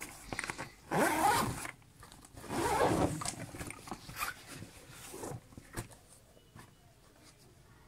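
Zipper on a fabric school bag being pulled in two quick strokes, about one and three seconds in, followed by lighter rustling and small clicks of items being handled.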